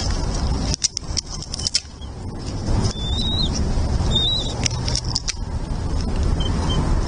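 Outdoor nest-cam ambience: a steady low rumble with bursts of sharp crackling clicks. Two short, high, wavering bird chirps come in the middle, and two fainter ones follow near the end.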